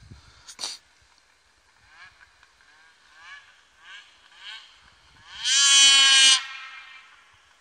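Polaris 800 Assault snowmobile's two-stroke twin with a GGB mountain can, revving in the distance, its pitch rising and falling several times. About five and a half seconds in, a much louder high held tone, rising slightly, lasts under a second and cuts off.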